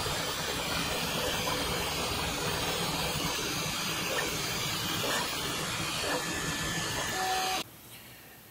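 Bambu Lab 3D printer running mid-print: a steady whirring rush from its fans and moving toolhead, which stops suddenly near the end.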